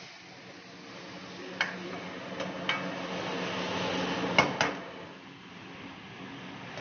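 Metal ladle knocking and scraping in a steel wok over a high gas flame, with the food and oil sizzling as the pan flares up. About five sharp knocks, the loudest pair about four and a half seconds in, over a sizzle that swells in the middle, with a steady low hum underneath.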